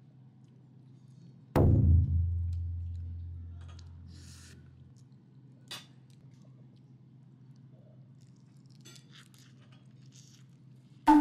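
A single deep drum-like hit, about a second and a half in, whose low ring fades over about three seconds. A faint steady hum runs beneath, and there is a sharp click at the very end.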